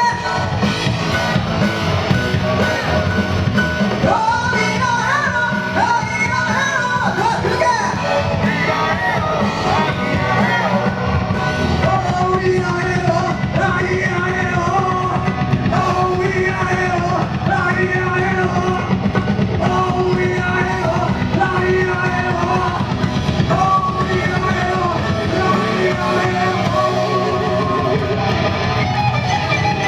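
Live rock-and-roll music from a band, loud and steady, with singing over it.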